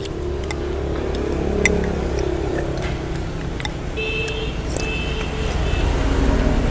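Steady low rumble of traffic with background music, and a scatter of sharp clinks of metal spoons against ceramic soup bowls.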